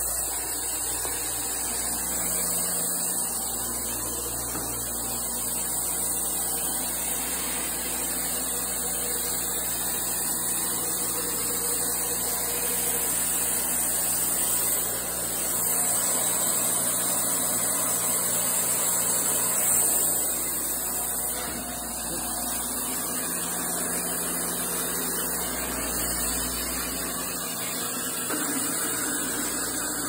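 Wood-Mizer portable band sawmill running as it saws a log: the electric motor and band blade give a steady whir and hiss, with a constant hum underneath.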